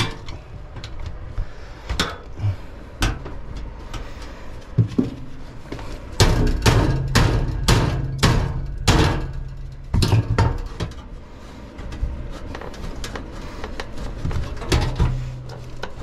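Hammer striking sheet-metal ductwork, setting a duct collar into a floor opening. Scattered sharp metallic knocks, with a quicker run of about two blows a second in the middle.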